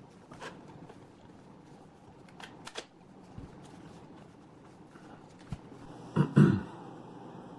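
Scattered light plastic clicks, then two louder knocks close together about six seconds in: a laptop and its parts being handled on a work surface.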